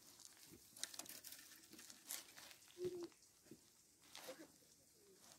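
Faint rustling, scratching and clicking of split carrizo cane strips being handled and bent upward on a half-woven basket, with a brief squeak near the middle.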